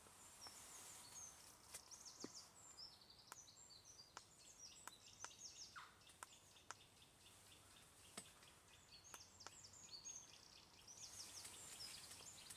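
Faint birdsong, many short high chirps and trills, over a low steady background hiss, with a few scattered soft clicks.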